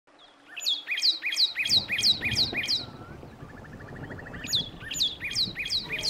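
A bird singing: a fast run of repeated high, downward-sliding notes, about four a second, then a brief soft trill, then the run again near the end. A low rushing noise sits underneath from about a second and a half in.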